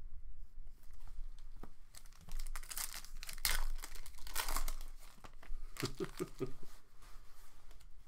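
Foil wrapper of a Panini Select football card pack being torn open and crinkled by hand, a run of crackly rips and rustles, most of them between about two and five seconds in.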